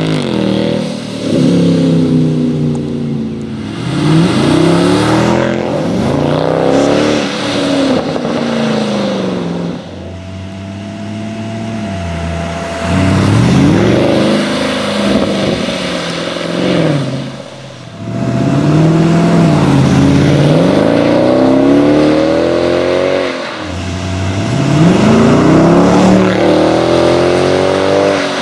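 Mercedes-Benz C63 AMG (W204) 6.2-litre V8 sounding through a REMUS stainless steel cat-back sport exhaust, accelerating hard past in several runs: the revs climb, drop back at each upshift and climb again, swelling loud as the car goes by.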